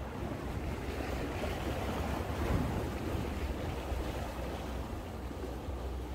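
Small waves washing and splashing against a rocky seawall, swelling about two seconds in, over the low steady hum of a boat engine.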